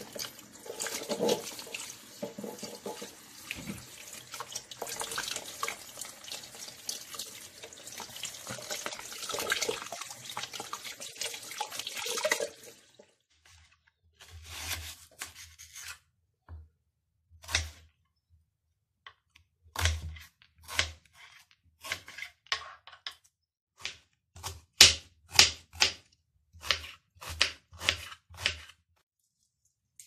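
Tap water running and splashing into a kitchen sink through a colander, stopping about 13 seconds in. Then a knife cutting on a plastic cutting board: about twenty sharp strokes with a low thud, sparse at first and coming faster in the second half.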